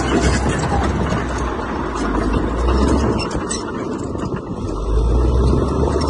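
Heavy earthmoving machine's diesel engine running with a deep rumble, easing off for a moment past the middle and building up again about five seconds in.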